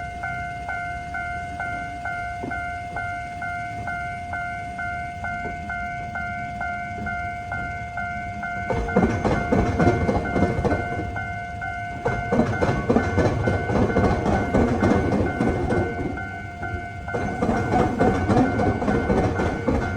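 Japanese level-crossing warning bell ringing, about two dings a second. About nine seconds in, a train starts passing over the crossing, its wheels clattering over the diamond-crossing rail joints while the bell keeps ringing.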